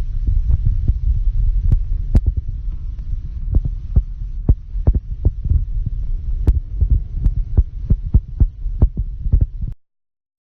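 A heavy, low mechanical rumble with irregular sharp clicks and knocks scattered through it. It cuts off abruptly near the end.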